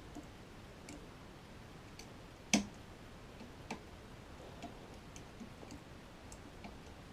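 Lever lock pick working the levers of a Union five-lever security deadlock under heavy tension: faint, irregular metallic clicks and ticks, one louder click about two and a half seconds in.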